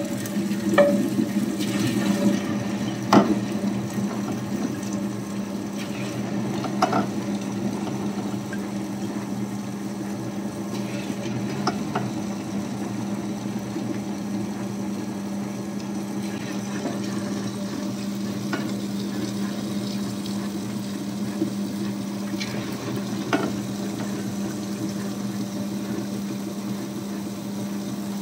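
Tabletop wet grinder running: a steady motor hum with the wet churning of its stone rollers grinding soaked urad dal, broken by a few light clicks.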